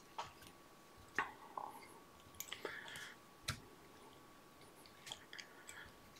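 Faint small clicks and rustles of hands handling fly-tying thread and materials at the vise, irregular, with a slightly longer rustle about two and a half seconds in.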